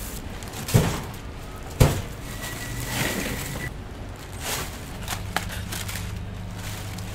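Two sharp knocks of hard objects striking, about a second apart, followed by lighter clattering and knocks over a steady low hum.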